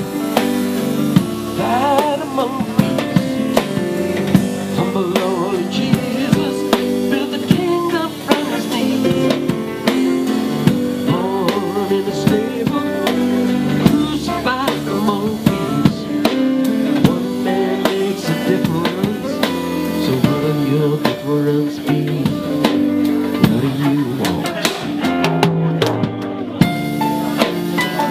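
Small live band playing an instrumental break: an electric guitar takes the lead with bending, wavering notes over keyboard and a drum kit with cymbals keeping a steady beat.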